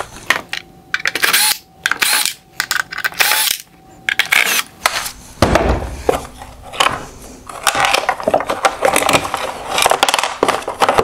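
Cordless drill-driver backing out Phillips screws from a headlight's LED control unit in short bursts. After that comes a run of clicks and rattles as the plastic headlight housing and screws are handled.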